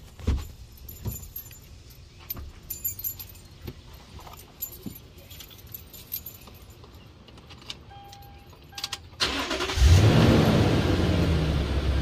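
Keys and small clicks and knocks, a short beep about eight seconds in, then a car engine starts about ten seconds in and runs steadily, much louder.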